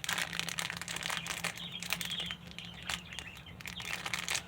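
Packaging crinkling and rustling as it is handled, a run of small crackles.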